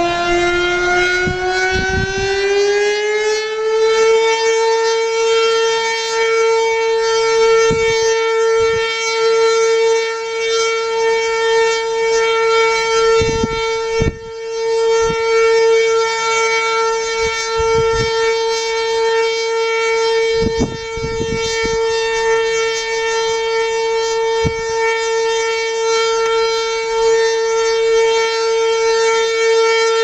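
Sentry 3V8-H electromechanical warning siren sounding one steady tone; its pitch is still climbing for the first few seconds, then levels off and holds. It is a failing unit, and the uploader was not sure it would get up to full speed.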